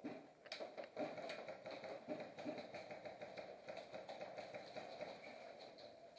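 Faint, irregular light taps and clicks, many in quick succession.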